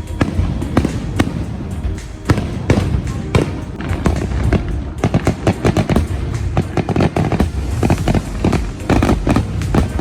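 Fireworks display going off: a rapid string of sharp bangs and crackles that comes thicker in the second half, with music playing underneath.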